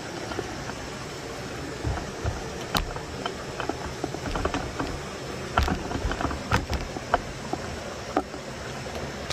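Scattered small clicks and knocks from handling close to the microphone, over a steady background hiss. The knocks are thickest between about two and eight seconds in.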